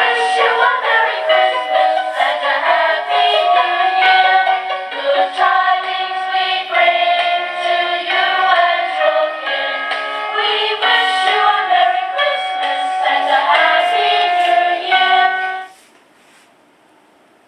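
A Christmas song with singing played from the small speaker of a motion-activated Christmas sound-effect box, thin and without bass, cutting off suddenly near the end.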